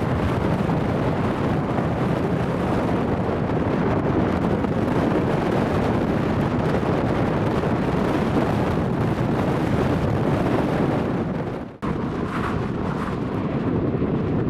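Jet airliner engines rumbling loudly, with wind buffeting the microphone. The sound cuts out for an instant about twelve seconds in and picks up again at a similar rumble, with a faint steady whine near the end.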